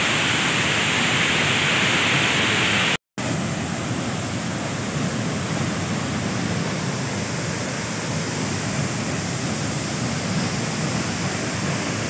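Waterfall's steady rush of heavy white water, loud and close. It cuts out for an instant about three seconds in and comes back slightly softer and duller.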